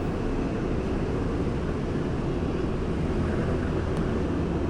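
A steady low rumble of background noise, even throughout with no distinct knocks or clicks.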